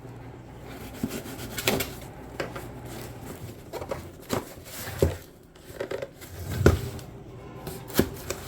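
A shipping package being opened and handled by hand: scattered knocks and clicks with rustling in between.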